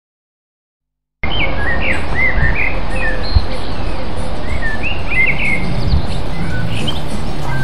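Birds chirping over and over above a steady rumble of street traffic, with a bus and motorbikes approaching. The sound starts abruptly about a second in.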